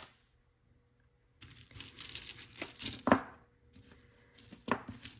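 Jewelry and its packaging being handled: a crinkling rustle for about two seconds, with a sharp clink about three seconds in and another near the end.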